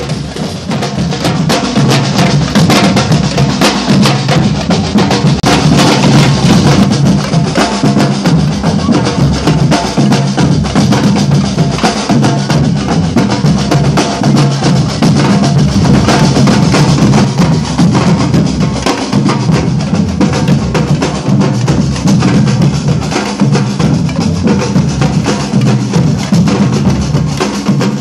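Samba drum band playing live: deep bass drums under snare drums and other percussion in a steady, dense rhythm.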